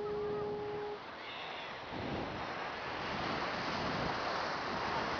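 Wind rushing over the microphone of a kite-borne camera, a steady noise that grows louder about two seconds in. A single steady tone sounds for about a second at the start.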